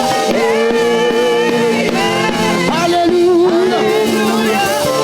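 Live gospel praise music: instruments holding sustained notes, with singing over them.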